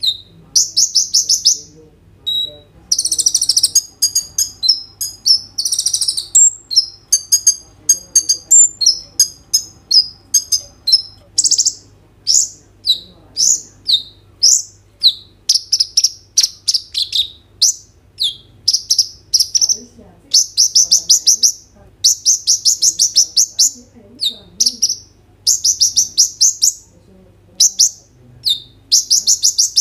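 Male Van Hasselt's sunbird (kolibri ninja) singing in full song: a fast, high-pitched run of chirps, short sweeping notes and rapid trills, with hardly a pause.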